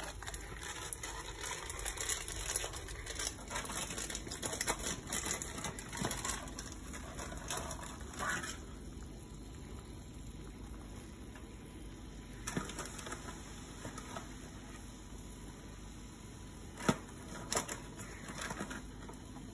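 Pot of tomato rasam bubbling at a boil, with a busy popping crackle for the first eight seconds or so that then drops to a quieter steady hiss. A few sharp clicks come near the end.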